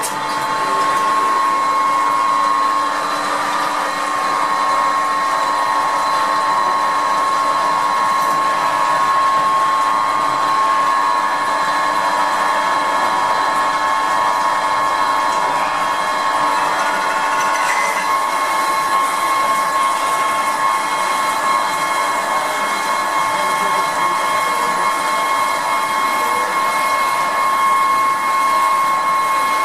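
CNC turning and milling lathe running: a steady whine from the spindle drive over the hiss of coolant spraying onto the workpiece as the tooling cuts.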